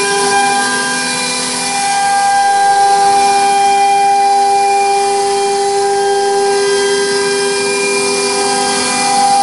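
CNC router spindle running at high speed while its bit cuts grooves into a wooden sheet: a steady whine over a hiss of cutting. The whine's tones shift slightly about half a second in and again near the end.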